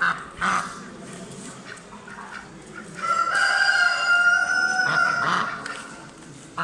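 A rooster crowing once: one long call, lasting about two and a half seconds, starting about three seconds in. Ducks quack briefly near the start.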